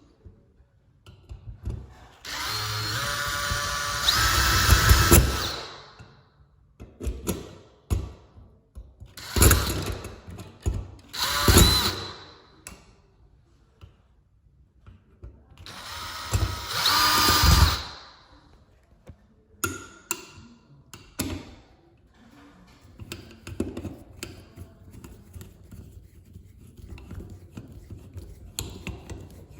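Power drill driving screws in several runs: a long run starting about two seconds in and rising in pitch and loudness, two short bursts, then another run of about two seconds. Light clicks and handling noise come between the runs.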